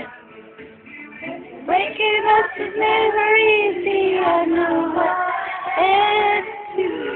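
A young female voice singing a melody, holding long notes around two and six seconds in, with short breaks between phrases.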